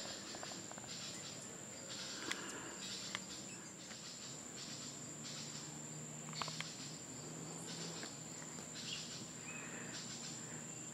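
Faint insects calling: one steady high-pitched trill, with buzzy pulses recurring about once a second.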